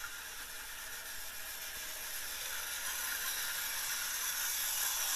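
Small battery-powered Pequetren toy trains running on their plastic plateway track: a steady high whirr that grows louder over the last few seconds.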